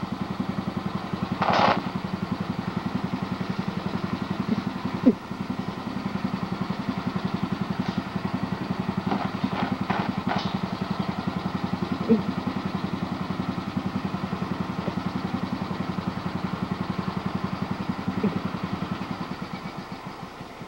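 Small engine of a six-wheeled amphibious ATV idling with an even, fast chugging beat, winding down near the end. A few light clicks and a short hiss sound over it.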